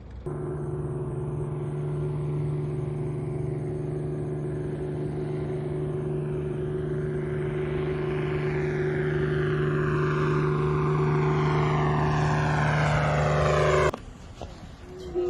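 Aircraft engine approaching and growing steadily louder: a steady low engine tone under a rushing noise that takes on a falling, sweeping sound as it nears. It cuts off suddenly near the end.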